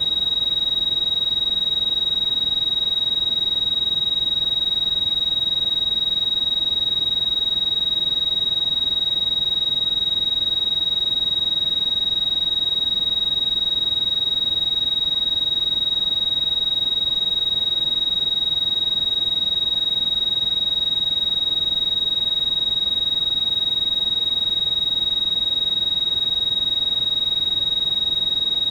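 Synthesized tinnitus-masking tone: a single steady, high-pitched electronic beep held unbroken at one pitch, over a faint even hiss.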